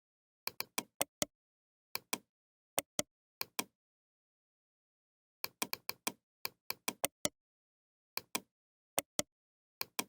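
Computer keyboard keys being typed: sharp clicks in quick, irregular runs of two to six strokes, with total silence between the runs.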